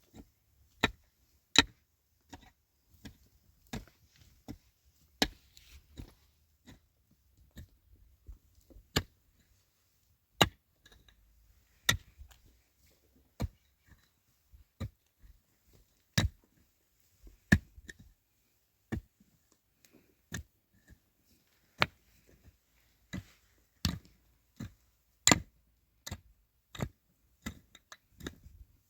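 Sharp knocks of a hand tool striking hard material, repeated at an irregular pace of about one or two a second, some much louder than others.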